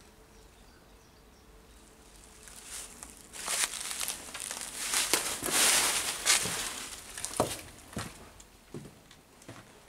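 Footsteps crunching through dry fallen leaves: a dense rustle and crunch starting about three and a half seconds in, then a few slower single steps near the end.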